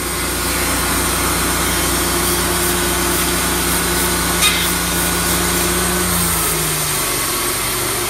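Wood-Mizer LT35 portable band sawmill running and sawing a reclaimed chestnut barn log. About four and a half seconds in, the band blade strikes a nail buried in the log with a brief sharp metallic hit. About a second and a half later the engine note drops.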